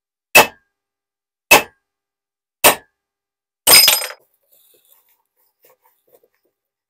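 Mallet knocking on an aluminium Mustang T5 transmission case: three sharp knocks about a second apart, then a fourth, longer one with a short metallic clatter.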